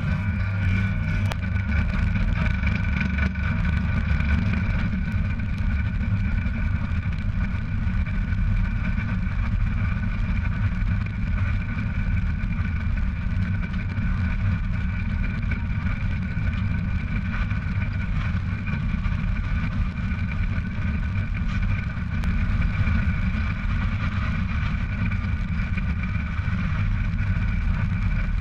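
Tractor-trailer under way, heard from a camera on the trailer's side bumper right beside its wheels: a steady rumble of tyres and running gear on the road with a steady whine over it.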